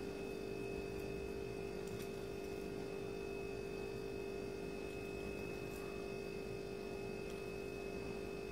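Steady hum: a low tone with a fainter, higher-pitched whine above it.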